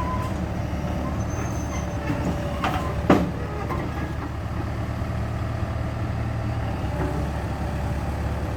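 Hitachi EX100-2 hydraulic excavator's diesel engine running steadily, with a sharp knock about three seconds in and a couple of fainter knocks around it.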